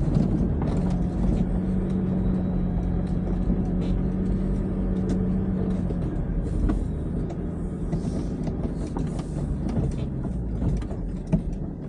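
Nissan Patrol's engine running as it drives slowly along a bumpy dirt track, heard from inside the cab: a steady low rumble and hum, with frequent small knocks and rattles from the body and loose gear. The engine hum fades about halfway through as the vehicle slows.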